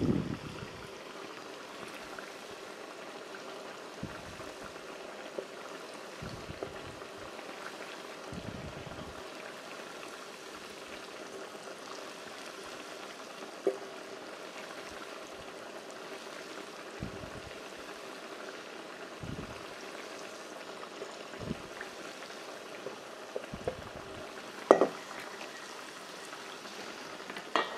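Battered potato strips deep-frying in oil in a frying pan, a steady bubbling sizzle. A few light knocks and clinks, the strongest about 14 and 25 seconds in, come from the wooden utensil working the battered potatoes in a stainless steel bowl.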